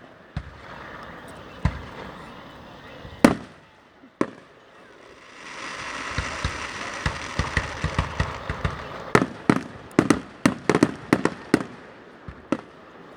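Aerial fireworks bursting: a few separate bangs at first, then from about five seconds in a steady crackling hiss with a quick run of sharp bangs in the last few seconds.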